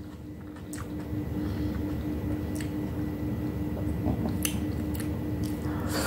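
Close-up mouth sounds of a person chewing soft boiled okra, with a few sharp wet clicks and smacks, over a steady low hum.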